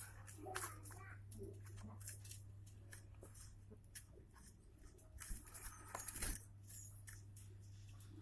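Scattered small clicks, taps and rustles of hands handling bird feed, a little busier about five to six seconds in, over a steady low electrical hum.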